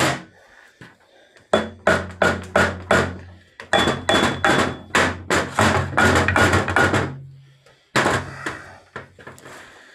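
Soft-faced mallet striking the red-painted metal casing of a mower's front-axle reduction gearbox, knocking the cover loose. The blows come rapidly, about three a second, for roughly six seconds, then a short pause and a few more.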